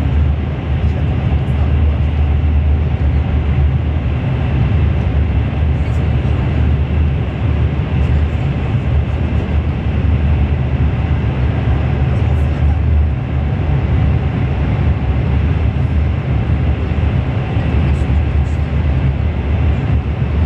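Cabin noise of a CRH1A-A high-speed electric train running at speed: a loud, steady low rumble with a hiss of rolling and air noise over it, heard from inside the carriage.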